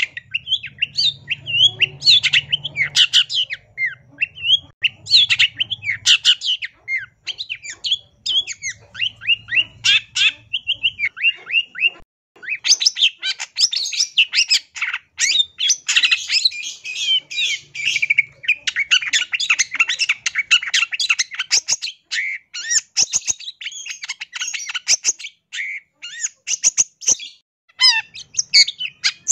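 Long-tailed shrike singing a long, rapid run of varied chirps and squawky notes, a song full of mimicked calls of other birds. It pauses briefly a little before halfway, then goes on in a faster, denser stream.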